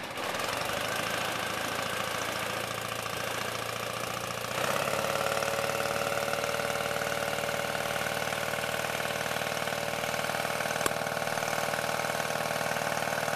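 Kitfox light aircraft's engine running at idle just after starting, propeller turning. About four and a half seconds in the engine speeds up a little and settles into a steady, slightly louder idle.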